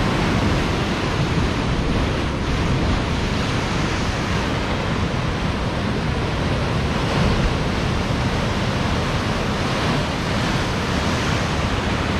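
Ocean surf breaking in a decent swell: a steady wash of waves, with wind buffeting the microphone.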